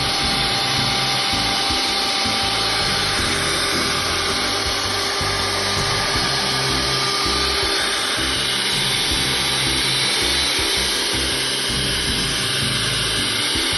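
Electric hand mixer running steadily, its beaters whipping heavy cream and sweetened condensed milk in a stainless steel bowl toward stiff peaks, with a steady motor whine.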